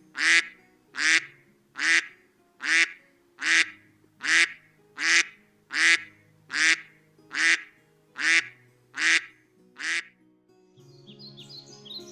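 A bird gives a long run of loud, harsh, evenly spaced calls, about thirteen, each a little under a second apart, over soft background music. Near the end the calls stop and quick high birdsong chirps take over.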